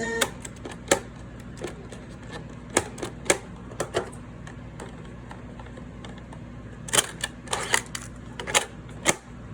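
Sharp plastic clicks and clacks from a Soundesign clock radio's cassette deck keys and mechanism being operated, coming in irregular clusters over a steady low hum from the set.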